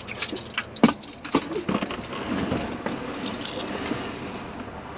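Several sharp clicks and knocks of small belongings being handled, followed by a rustling noise.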